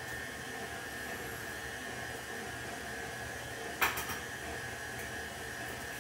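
KitchenAid stand mixer with its paddle attachment running steadily, beating butter, sugar and egg, its motor giving a steady whine. About four seconds in, a sharp crack as an egg is knocked open.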